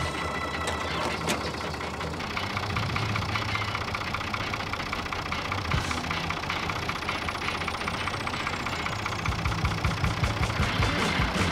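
1982 Fiat 440 tractor's diesel engine idling steadily with an even diesel clatter, running again after its fuel system has been bled of air.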